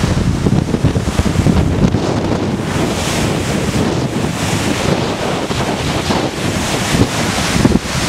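Whitewater rapids of the Skjálfandafljót river below Goðafoss rushing steadily through a rocky gorge, with wind buffeting the microphone as a fluctuating low rumble.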